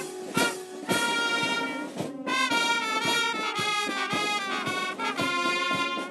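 Brass band music: trumpets and trombones playing held notes over a steady beat.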